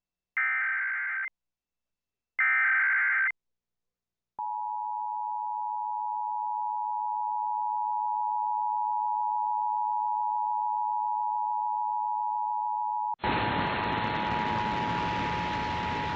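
Emergency Alert System tones: two roughly one-second bursts of SAME data warble, followed about four seconds in by the steady two-tone EAS attention signal. A loud hiss joins the attention signal near the end. The alert sequence is playing again after the test message had already been read, out of the proper order.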